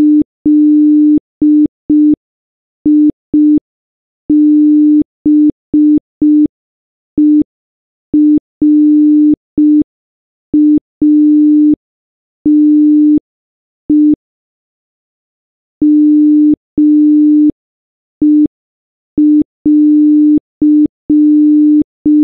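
Morse code keyed as a low electronic tone: short and long beeps at one steady pitch, with pauses between letter groups and a longer break about two-thirds of the way through.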